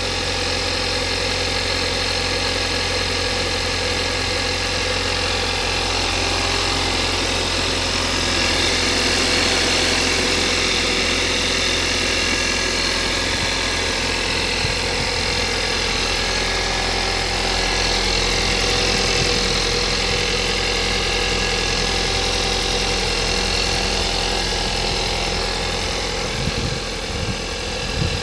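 Engine idling steadily on a cold start with a knock in it, the cold-engine knock the owner is recording. A few low thumps near the end.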